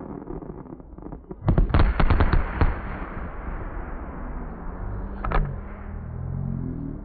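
Fireworks in slowed-down playback: a rapid cluster of loud bangs and crackles about a second and a half in, then a single sharp bang a few seconds later, over a low rumble.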